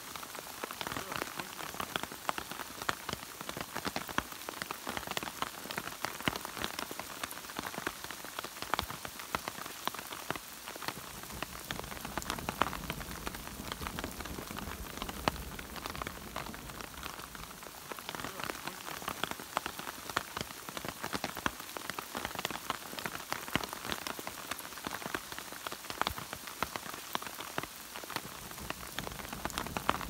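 Steady rain falling on forest leaves and undergrowth: a dense, even patter of many small drop hits.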